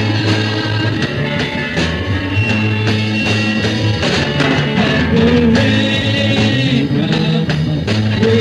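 Rock band playing live, with a steady bass line and regularly struck drums under singing.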